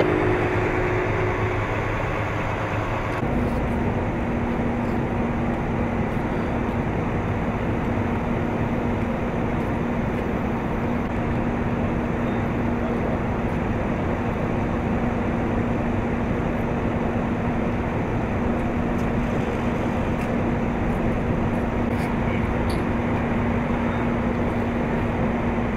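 Steady heavy-vehicle engine noise on the street. A semi truck drives past at first, then from about three seconds in a constant low engine hum holds over the street noise.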